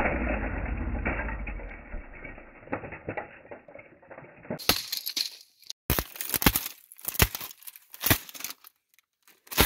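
Old plastic computer keyboard being smashed with a sledgehammer. The crunch of a blow dies away over the first two seconds. Later comes a string of about eight sharp cracks and clatters of breaking plastic and loose keys.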